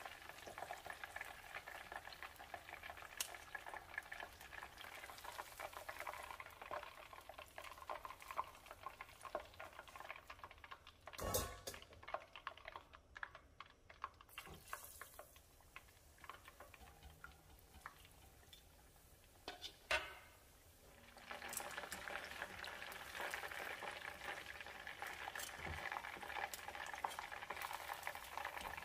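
Battered chicken legs deep-frying in hot oil, a faint, steady sizzle and crackle of bubbling oil. It dies down to a quieter bubbling in the middle, with a brief knock about eleven seconds in and another about twenty seconds in, then grows louder again near the end.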